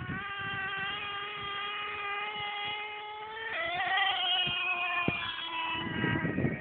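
Traxxas Slayer RC truck's nitro engine running at high revs: a high-pitched whine that climbs slowly, jumps higher about three and a half seconds in as the throttle opens, then falls back near the end.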